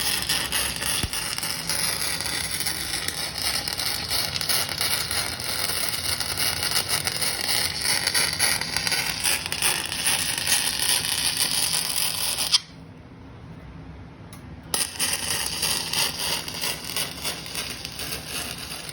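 Steady crackle of an electric arc welder laying a bead on steel, stopping about twelve and a half seconds in and starting again about two seconds later.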